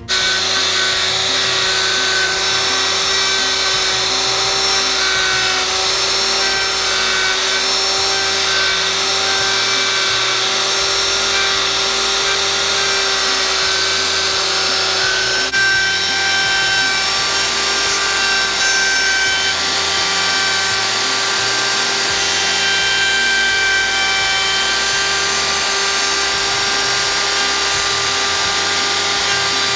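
Electric power tool running steadily: a constant motor whine over a rough, hissing grind.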